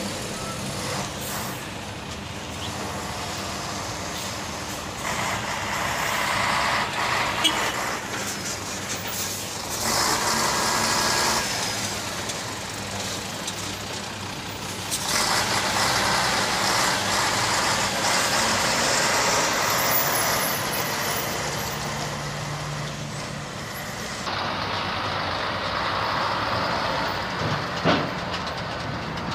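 Heavy six-wheel military trucks driving past one after another, the engine and tyre noise swelling and fading with each pass. A single sharp click near the end.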